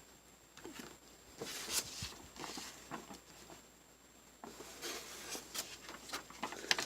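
Quiet handling noises: soft rustling and small clicks in two short spells, from something being picked up and moved by hand.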